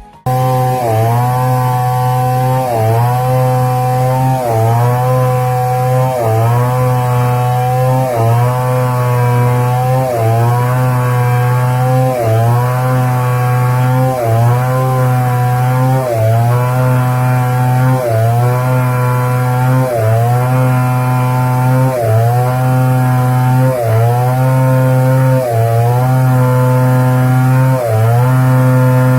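Motorized wood saw running and cutting, its pitch dipping briefly and recovering about every second and a half as the blade takes the load.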